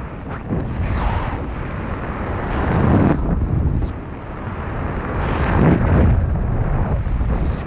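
Wind noise from airflow buffeting a skydiver's body-worn camera microphone during flight under an open parachute canopy. It is loud and swells and eases every couple of seconds.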